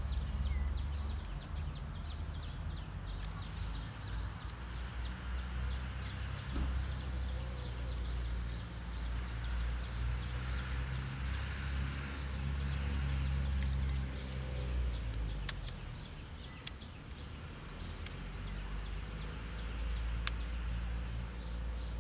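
Outdoor background with a continuous low rumble, over which a few sharp clicks sound about two-thirds of the way in as a bowsaw blade is handled onto its frame and tensioned.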